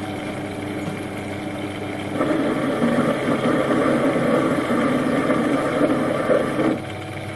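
Metal lathe running in bottom gear with a steady hum; about two seconds in a louder, rough cutting noise starts as a stepped drill in the tailstock is fed into a thin mild steel washer, and it stops shortly before the end.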